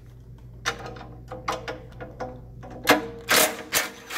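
Metal clinks and rings as a wrench is set on the nut against the steel basket. About three seconds in, a cordless impact driver runs in short, loud bursts, backing out a 1-inch bolt.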